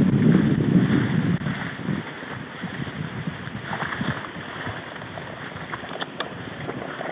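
Wind buffeting the microphone of a handheld camera for the first two seconds. After that comes quieter, irregular rustling and crackling of grass and reeds as someone moves through shoreline vegetation, with a sharp click about six seconds in.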